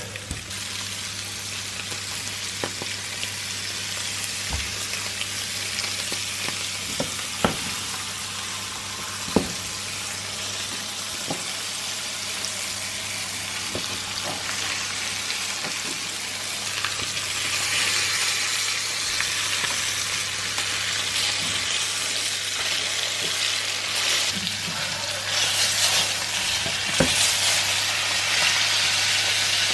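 Two whole flour-dusted flounder frying in hot oil in a non-stick pan: steady sizzling with scattered sharp pops and spits, getting louder from a little past halfway. Near the end a spatula scrapes under one fish as it is turned, and a steady low hum runs underneath.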